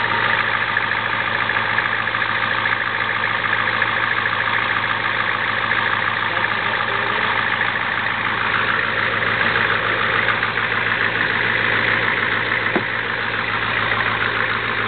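Ford IDI diesel engine idling steadily with a rapid, even clatter, running at about 200 degrees after an oil cooler rebuild.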